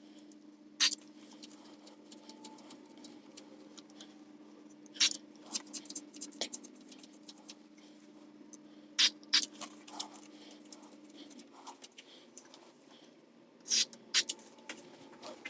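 Short squirts of DeoxIT Fader F5 contact cleaner from an aerosol can through its straw, about six in all, some in pairs. Between them come small scratchy clicks of the pots being wiggled and handled. A faint steady hum in the background stops about two-thirds of the way through.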